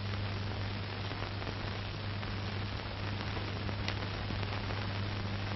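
Steady hiss with a constant low hum underneath, the background noise of the recording itself; no other sound stands out.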